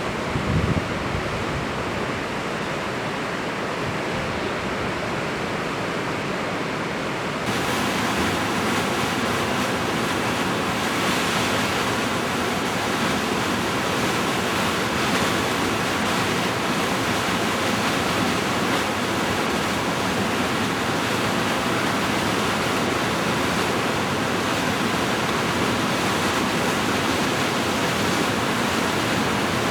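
Suryakund waterfall at Gangotri, a steady rush of falling water. About seven seconds in it turns louder and brighter. A few low buffets of wind on the microphone come in the first second.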